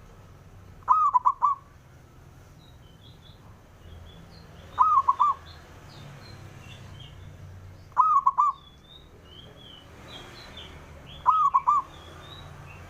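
Male zebra dove (perkutut) singing its cooing phrase four times, about every three seconds, each a quick run of three or four looping notes. Faint high chirps from small birds sound between the phrases.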